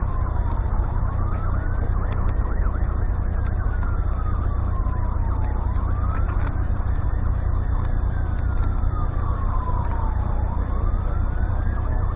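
Emergency vehicle wail siren, rising and falling in a slow cycle of about five seconds, over a steady low rumble.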